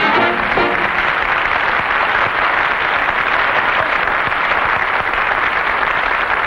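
Studio audience applauding steadily, the even clatter of many hands clapping at once.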